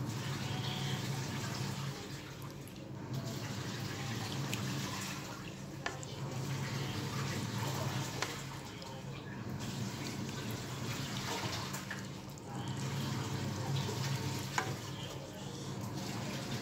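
Adobo sauce simmering around chicken feet in a pan, a wet bubbling that swells and eases over a steady low hum. A few sharp clicks come from a wooden spatula touching the pan.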